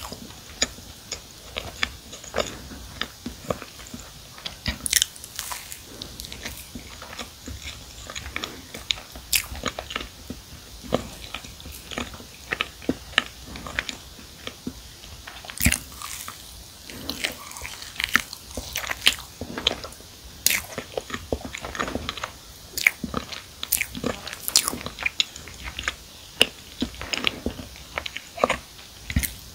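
Close-miked chewing and biting of marshmallow-filled s'mores cookies, with irregular sharp crunches and clicks.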